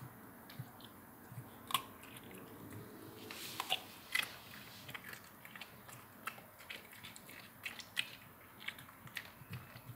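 Dog chewing and crunching on a piece of Korean melon (chamoe), irregular crisp bites and smacks, a few louder crunches among fainter chewing.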